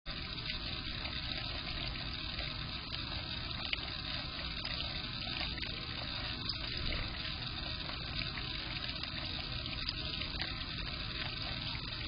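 Steady splashing of a small fountain jet falling into a shallow bird-bath basin, with the odd tiny drip tick.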